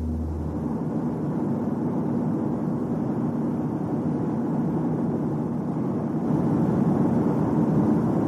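Steady noise of a moving vehicle, growing louder about six seconds in.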